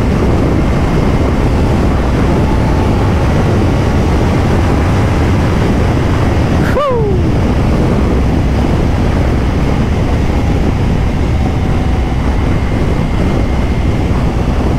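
Wind noise buffeting a helmet microphone over the running engine of a motorcycle at speed, loud and steady. About halfway through, a brief tone falls sharply in pitch.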